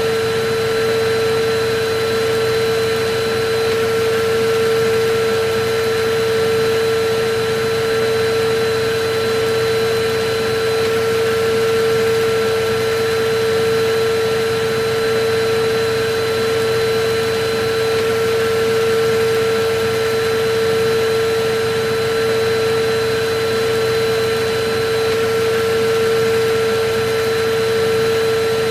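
Electric vacuum cleaner running steadily: a constant rush of air under a steady motor whine, without a break.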